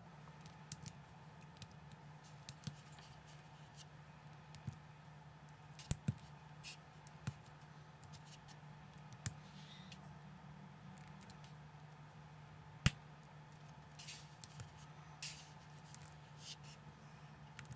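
Small plastic building bricks clicking and snapping together as they are handled and pressed into place: a scattered series of sharp clicks, the loudest about two-thirds of the way through.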